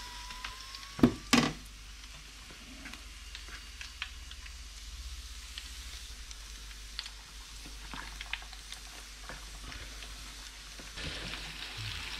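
Floured squid pieces deep-frying in a saucepan of hot oil: a steady sizzle with small crackles. Two sharp knocks about a second in are the loudest sounds, and the sizzle grows louder near the end.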